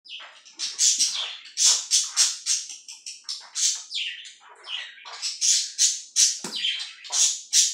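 Slime and glue-and-shaving-foam mixture being squeezed and stirred by hand: a run of short, irregular squishes, about two or three a second.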